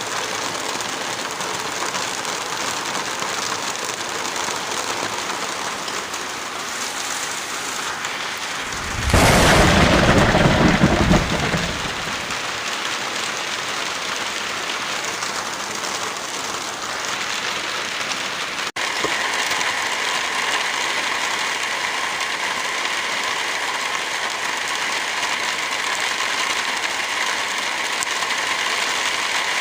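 Steady heavy rain. About nine seconds in, a loud deep rumble rises over it for about three seconds. A little past halfway the sound drops out for an instant, and the rain comes back with a brighter hiss.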